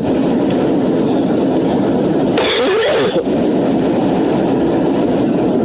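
A man snoring very loudly and without pause, with a harsher stretch about two and a half seconds in.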